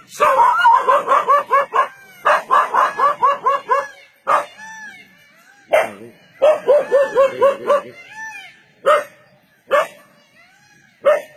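A dog barking and yipping in quick runs of high-pitched calls, about five a second, with single barks between the runs.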